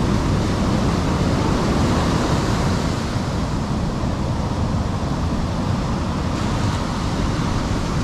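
Ocean surf breaking and washing up a sandy beach: a steady rush of waves with a deep rumble underneath.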